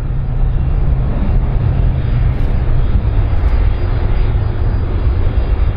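Airbus A310-304 jet airliner's engines running loud and steady as it rolls along the runway: a deep rumble with a rushing hiss above it.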